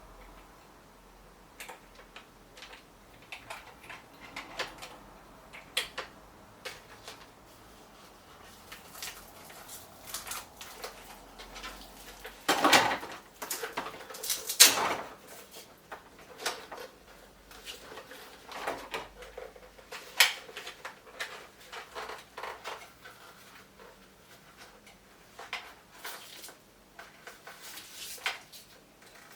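Plastic toy parts and packaging being handled during unboxing: scattered light clicks, knocks and rustles, with two louder rustling scrapes near the middle.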